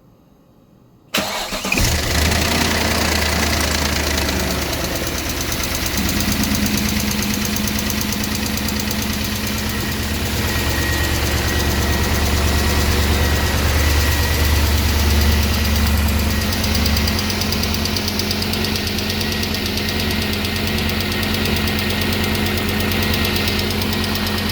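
BMW E39 M5's S62 V8 starting about a second in and then idling steadily, with a deep low-pitched running note and a faint steady whine above it. The owner reports that a knock has appeared in this engine.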